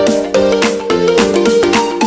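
Background music with a steady beat and a quick, changing run of notes.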